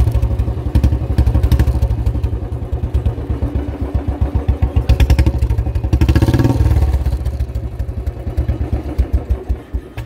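Royal Enfield Bullet 350 Standard's single-cylinder engine running through an aftermarket long-bottle 'bada Punjab' silencer, heard close at the pipe as a deep, rapid thump of exhaust pulses. The engine picks up briefly about six seconds in, then falls back to slower, looser thumps.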